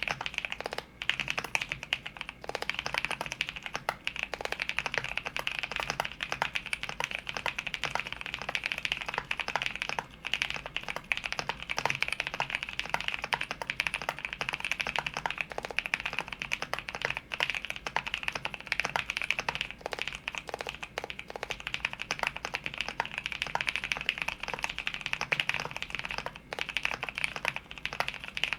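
Continuous fast typing on a custom 60% mechanical keyboard with NovelKeys x Kailh Blueberry tactile switches, a carbon fibre plate, an aluminium case and Cherry-profile keycaps: a dense run of keystroke clacks with a few brief pauses.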